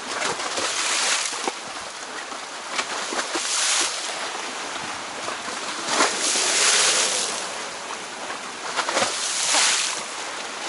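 Wind buffeting the microphone over choppy sea water washing against the shore, swelling in surges every two to three seconds.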